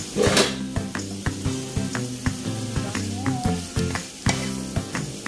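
Food sizzling in hot oil in a pan, with a loud surge of sizzle just after the start, over background music with a steady beat.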